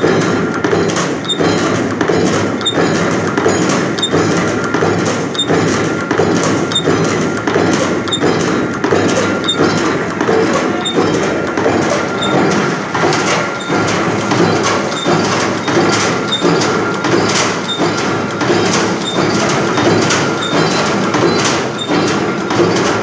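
Barfi jali (diamond expanded metal mesh) machine running, its crank-driven die knocking through the metal sheet in a steady rhythm of about three strokes every two seconds over a continuous hum from the drive.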